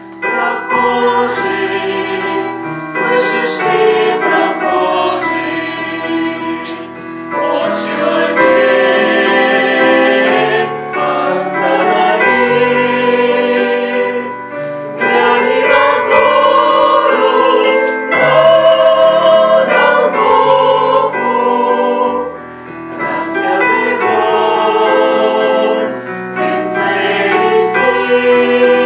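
Choir singing a Christian song, with phrases that rise and fall and brief breaths between lines.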